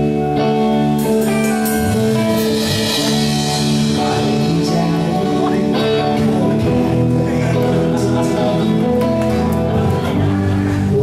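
A live rock band playing a song: guitar chords over bass, with drums and cymbals.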